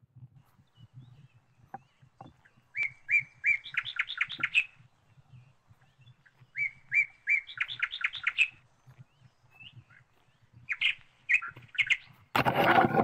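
A songbird singing the same phrase twice: a few evenly spaced notes followed by a quick run of higher notes, then a few shorter calls. A loud burst of noise comes near the end.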